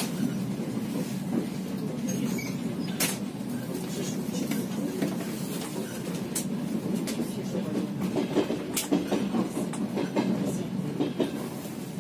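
Passenger train rolling along, heard from inside the carriage: a steady low rumble, with a few sharp clicks of wheels over rail joints.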